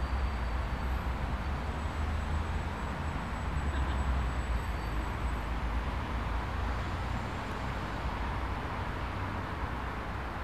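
Steady road traffic noise from a busy multi-lane city road: an even wash of passing cars with a low rumble underneath.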